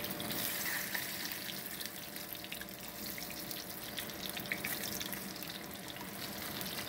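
Floured tilapia fillets frying in hot oil in a stainless steel pan: a steady sizzling hiss with small crackles.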